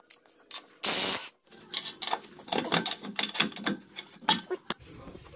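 A Milwaukee cordless power tool runs in a short burst about a second in, spinning a nut off the exhaust downpipe flange. It is followed by scattered light metallic clicks and knocks as the loosened nut, tools and pry bar work against the flange.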